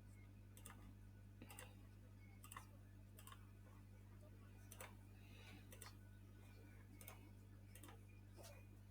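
Near silence: faint, irregular computer mouse clicks about once a second over a steady low electrical hum.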